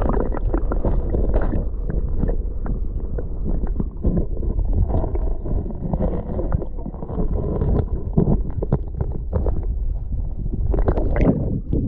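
Flowing river water heard through an action camera held underwater: a muffled low rumble and gurgling with many small clicks.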